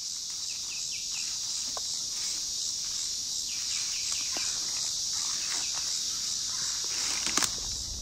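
Insects trilling in a steady high chorus. Runs of short, quick falling chirps come at a few points, and there is one sharp click near the end.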